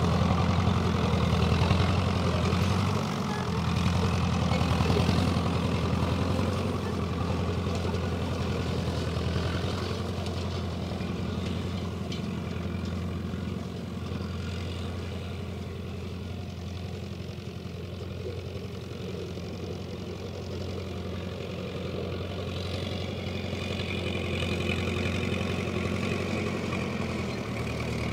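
Tractor's Perkins diesel engine running steadily. It gets quieter towards the middle and louder again near the end, as the tractor moves away and comes back.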